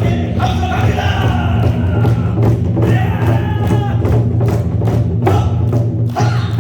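Korean buk drums beaten in a strong rhythm, with a held melodic line sounding over the drumming through the first half.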